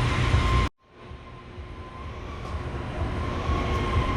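Steady low background rumble with a faint constant high tone. It cuts out abruptly under a second in and fades back up gradually.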